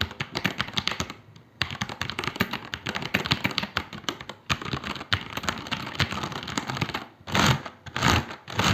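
Typing on a HyperX Alloy Elite mechanical keyboard with Cherry MX Red linear switches: a fast run of key clicks that pauses briefly about a second in, with a few louder bursts of strokes near the end.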